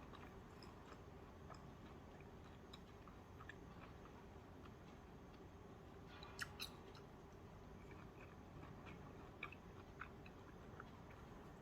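Faint eating sounds: a person chewing, with scattered small mouth clicks and two sharper clicks about six and a half seconds in.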